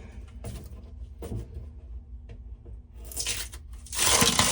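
A few light knocks and scrapes, then from about three seconds in a loud crackling rustle as duct tape and steel wool are pulled out from behind a kitchen sink.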